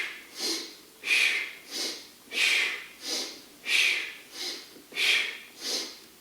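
Steady rhythmic breathing in and out, a stronger breath then a weaker one repeating about every 1.3 seconds, as in paced diaphragm breathing during exercise.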